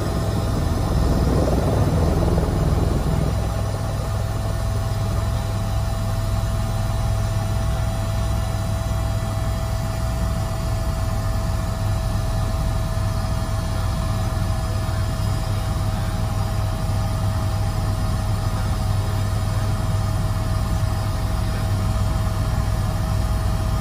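Helicopter heard from inside the cabin as it lifts off: a steady low rotor and engine drone with a constant high turbine whine, a little louder in the first few seconds.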